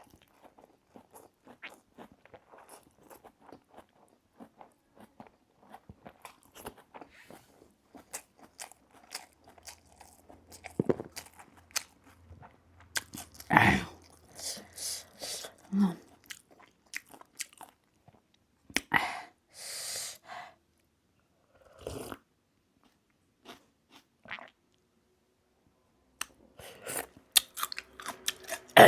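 Close-miked chewing and crunching of food, many small crunches and clicks with a few louder bites about halfway through.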